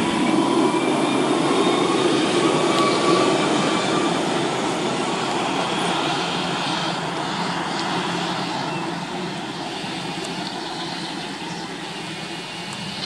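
Newag Impuls 2 electric multiple unit moving away along the track, its running noise slowly fading as it recedes, with a faint whine in the first few seconds.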